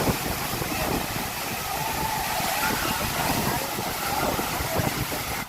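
Steady rush of water falling at a waterfall, with faint voices underneath.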